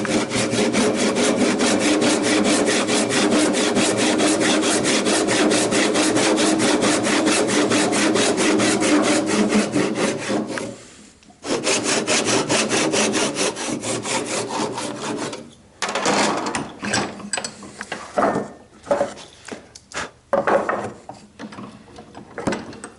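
Handsaw cutting through timber in fast, even back-and-forth strokes. It stops briefly about halfway, saws on for a few more seconds, then gives way to irregular scraping and knocks of wood.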